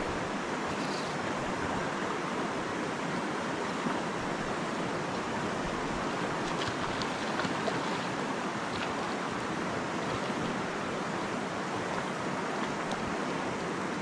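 Mountain stream running over a stony riffle: a steady rush of water, with a few faint high ticks around the middle.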